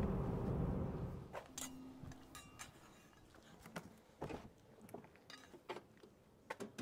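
Low, steady tyre and road noise inside a moving Tesla Model 3 Highland's cabin, fading out about a second in. Near quiet follows, broken by scattered faint clicks and taps.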